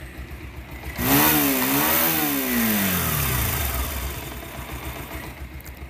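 Bajaj Pulsar single-cylinder motorcycle engine idling, then given a throttle rev about a second in that climbs, dips briefly and peaks again before dropping back to idle. The engine sounds as it should: the mechanic takes it for the engine-noise problem being cured with the balancer pinion refitted.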